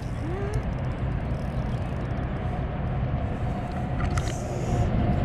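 Steady low outdoor rumble, with a faint steady hum coming in about three seconds in and a brief run of clicks about four seconds in.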